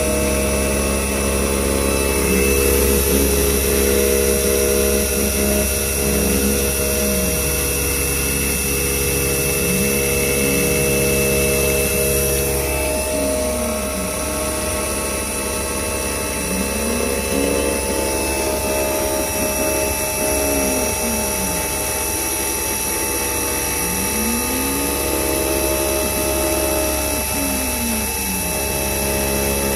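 CNC-converted Clarke CMD300 mini mill running, its spindle humming steadily as an 8 mm ball nose cutter 3D-contours a connecting rod under coolant. A low whine from the axis drives rises and falls in pitch every few seconds as the cutter traverses back and forth.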